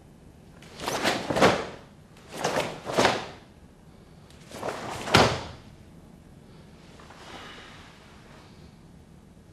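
Karate strikes and blocks performed with a partner: quick swishes and slaps of uniforms, arms and feet in three short clusters, about a second, two and a half seconds and five seconds in.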